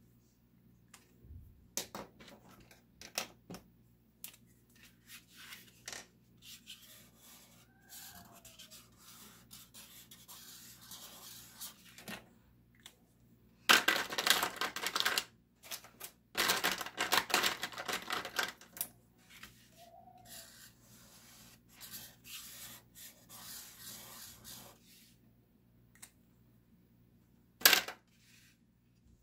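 Scattered clicks and taps as a marker is set down on a wooden desk and a cardboard box is handled, with two longer stretches of loud rustling and scraping about halfway through.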